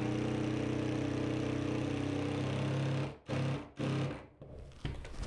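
Cordless drill-driver driving a 2¼-inch screw through a particleboard back cleat into a wall stud. The motor runs steadily for about three seconds, then gives three short bursts as the screw is sunk flush.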